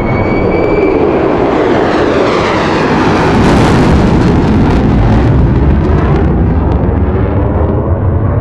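Boeing T-7A Red Hawk's single GE F404 turbofan jet engine running as the trainer rolls down the runway nose-high after touchdown. A high whine fades out in the first second; the jet noise swells to its loudest about halfway through as the aircraft passes close by, then eases off.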